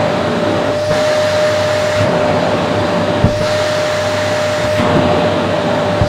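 Vacuum cleaner running steadily with a constant whine, its bare hose end sucking at a pillowcase; the rush of air shifts slightly as the hose is pressed against and moved over the fabric. A single short thump about three seconds in.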